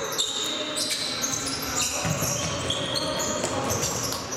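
Indoor futsal play: many short, high-pitched shoe squeaks on the sports-hall floor, with the ball being kicked and bouncing, in a reverberant hall.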